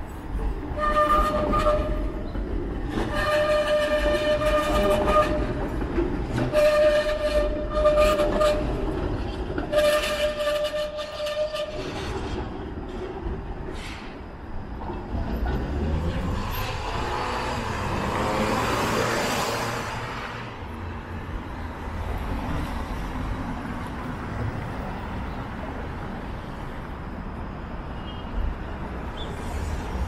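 A horn blows four times, each blast one steady note lasting one to two seconds. Then a vehicle passes with a broad swell of noise over the steady rumble of street traffic.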